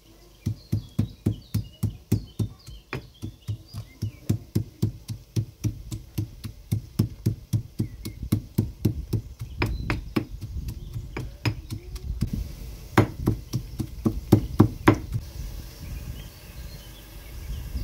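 Stone pestle pounding garlic and green chillies in a heavy stone mortar: a steady run of dull thumps about three a second, with a few louder, sharper knocks in the later part.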